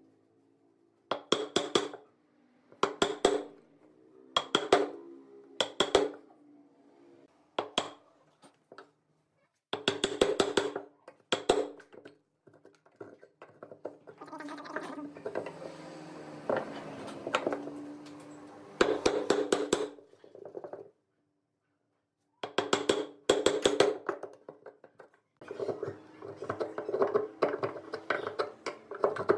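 Wood being knocked: short clusters of sharp knocks with a brief ringing, repeating every second or two, with a few seconds of scraping around the middle.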